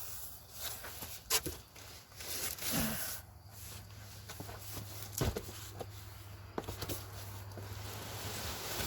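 Handling noises of unboxing a portable generator: shuffling, a few sharp knocks and rustling of packing as it is moved out of the box and set down, over a steady low hum.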